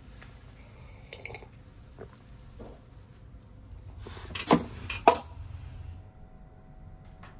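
Handling noises in a small room: scattered light clicks and rustles, then two sharp knocks about half a second apart a little past the middle.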